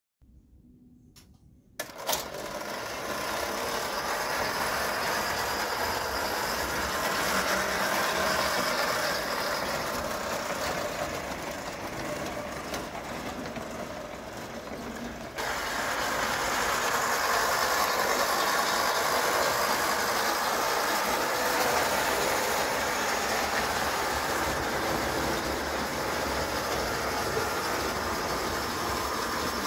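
Bing gauge 1 electric toy train running steadily on tinplate track. The sound starts about two seconds in and gets louder about halfway through.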